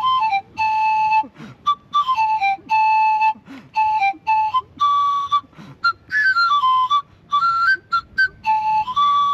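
A simple tune of whistle-like single notes, some short and some held, stepping up and down in pitch, with short gaps between phrases.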